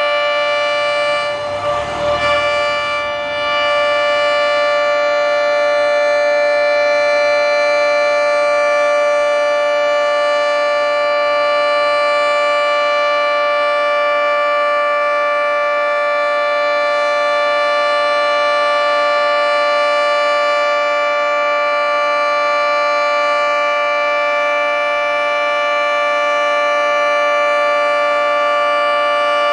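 Federal Signal 3T22 three-tone electromechanical warning siren sounding a steady, loud chord during its monthly test. A brief rush of noise cuts in about two seconds in.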